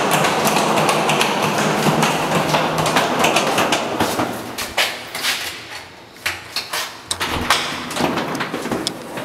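Walking noise and rustling, then after about four seconds a series of sharp clicks and knocks as a hotel room door's lock and handle are worked.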